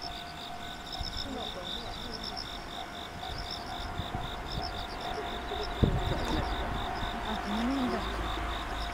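Insects chirping in a steady pulsing rhythm, about three or four chirps a second, over a low outdoor rumble, with a single short thump about six seconds in.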